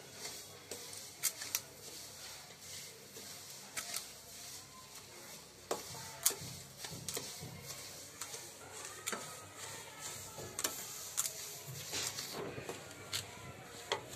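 Wooden spatula stirring and scraping semolina around a non-stick kadhai as it roasts in ghee, with irregular sharp clicks and knocks of the spatula against the pan.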